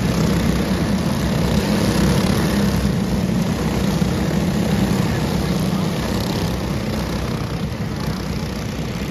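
A pack of racing karts running together on a dirt oval, their engines making a dense, steady drone that eases off a little in the last few seconds as the karts move away.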